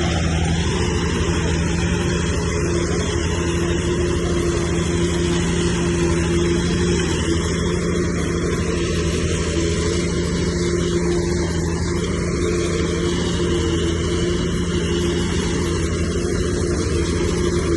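Heavy diesel engine of earthmoving machinery running steadily at a constant speed, a level mechanical drone.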